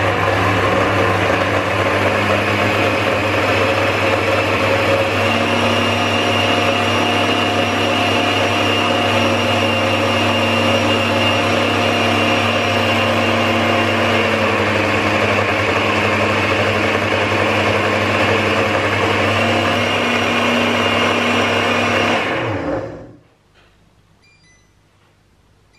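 Vacuum blender's motor running steadily at high speed, blending mango, spinach, lime and water into a thick green smoothie. It spins down and stops about 23 seconds in.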